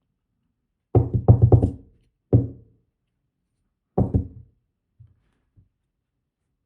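Knocks from the dismantled ASSA Twin Combi lock being handled on the work surface: a quick run of about five, then two single knocks and a couple of faint taps, each with a short ring.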